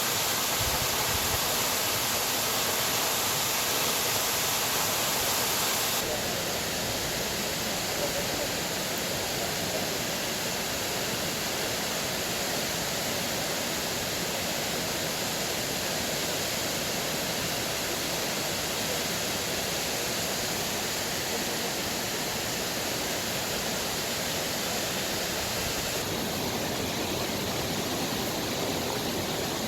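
Waterfall rushing steadily in a continuous even roar of water. About 6 s in the sound turns slightly quieter and less hissy, and it shifts again near the end.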